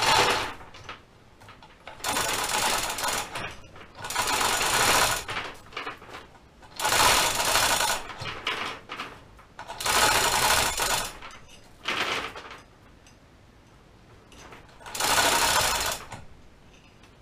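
Hand chain hoist rattling in a series of pulls, about seven bursts of a second or so each with short pauses between, as it lifts the machine's heavy saddle.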